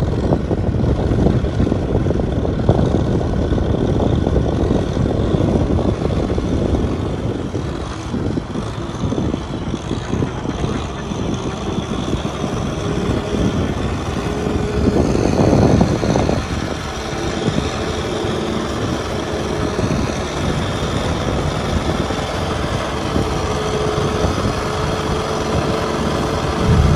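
Kubota M6040 tractor's diesel engine running steadily under load while pulling a rear rotary tiller through wet paddy mud. About halfway through it swells briefly, and from then on a steady whine runs alongside the engine.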